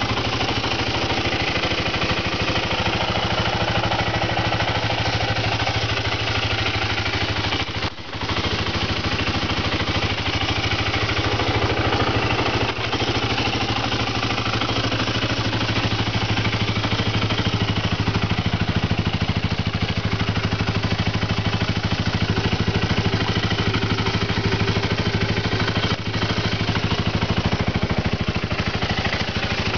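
BMW F650GS Dakar's fuel-injected Rotax single-cylinder engine idling steadily through an aftermarket Sebring exhaust.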